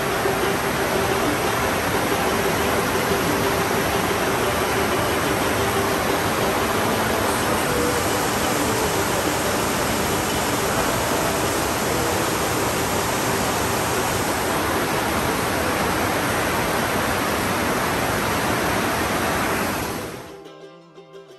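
Fast mountain river rushing over rocks: a steady, loud wash of white water that fades out quickly about a second before the end.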